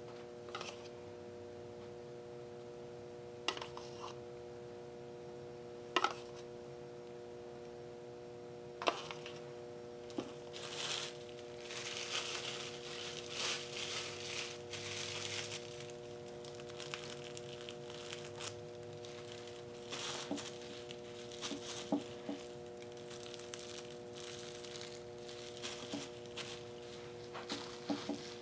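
Plastic bubble wrap crinkling as it is handled and pressed into wet acrylic paint, with a few sharp clicks in the first ten seconds and a longer crinkling stretch in the middle, over a steady hum.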